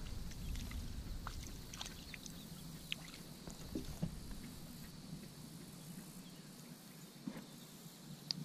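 Low wind rumble on the microphone that fades out over the first few seconds, with scattered faint clicks and ticks from handling fishing gear.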